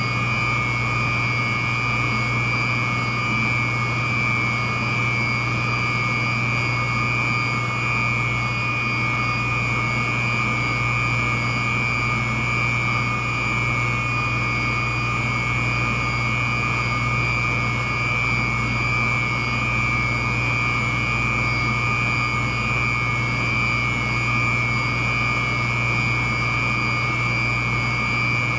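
York YK centrifugal chiller running: a steady, even machine noise with a low hum and a high, constant whine.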